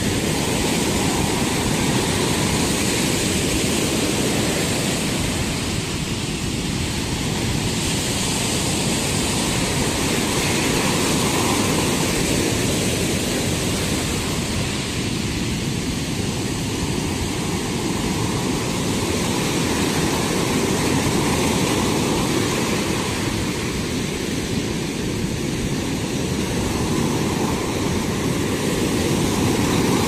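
Sea waves breaking on a sandy beach in rough surf: a steady, loud rush of surf noise that swells and eases gently as successive waves crash and wash up the shore.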